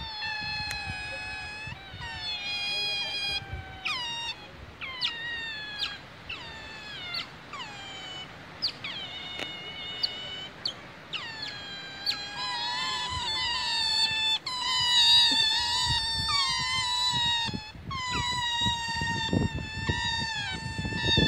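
Otters squealing as they wrestle: a continuous high-pitched whine broken by sharp falling chirps about once a second, getting louder about halfway through. A low rumbling noise comes in near the end.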